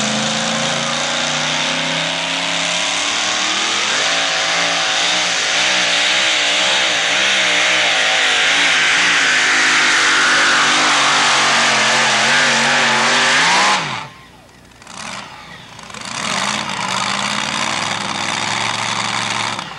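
Two-wheel-drive pulling truck's engine running hard under full throttle as it drags the sled, its note wavering up and down through the pull. About fourteen seconds in it drops away suddenly, and a quieter engine sound follows.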